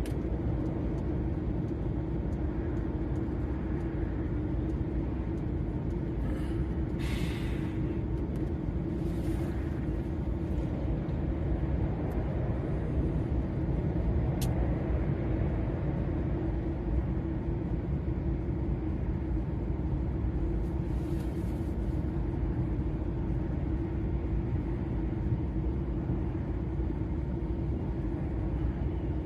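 DAF XF 480 lorry's engine and road noise as a steady low drone while cruising on the motorway, with a few brief hissing whooshes and one sharp click about halfway through.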